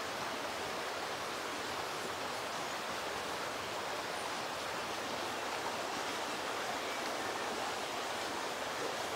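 Steady outdoor ambience: an even rushing noise with no distinct events.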